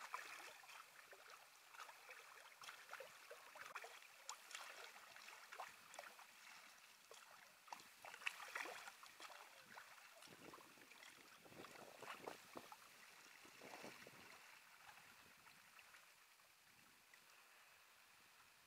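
Faint splashing and dripping of kayak paddle blades dipping into and lifting out of calm water, stroke after stroke, thinning out near the end.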